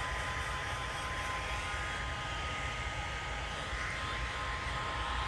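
Heat gun running steadily: an even blowing hiss with a thin, steady whine.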